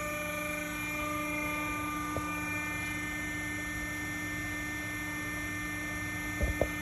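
Steady hum of the PPCT-60 hydraulic C-frame press's power unit running with the ram at rest, holding several constant tones; a few short knocks near the end.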